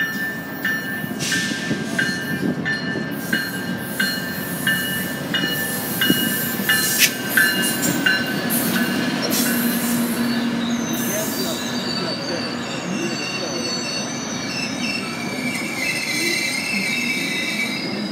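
GO Transit diesel-hauled commuter train pulling into the station: a bell rings in regular strokes about one and a half times a second for the first eight seconds or so, then the wheels squeal as the bilevel coaches roll slowly past, over a steady low rumble of the train.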